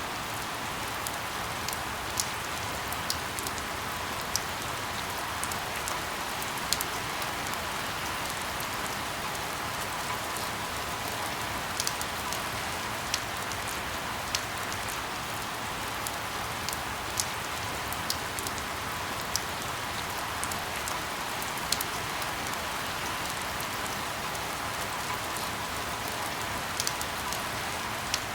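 Steady rain hissing, with sharp single ticks scattered irregularly through it, about one every second or two.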